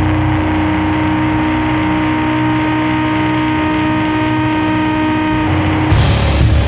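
Sludge-doom metal: a heavily distorted guitar holds one long droning note, then drums and cymbals crash in with the full band about six seconds in.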